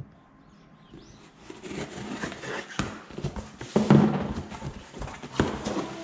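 Cardboard and styrofoam delivery boxes being handled and opened: rustling with scattered knocks and thumps, the loudest thump a little past the middle.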